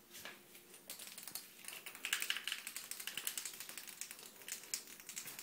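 A small dog's claws clicking and scrabbling quickly on a tiled floor as it hunts a cockroach. The sound is a faint, rapid, irregular run of clicks that starts about a second in.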